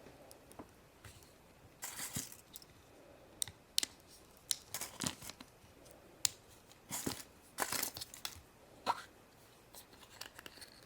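Foil wrapper of a chocolate surprise egg being torn and crinkled off by hand in short, irregular bursts, with a few sharp clicks.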